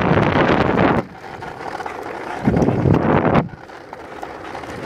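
Wind buffeting the microphone while moving fast, in two loud gusts: one over the first second and another from about two and a half seconds in, with quieter rushing between.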